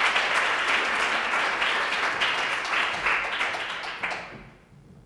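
Audience applauding, a dense round of clapping that dies away over the last second or so.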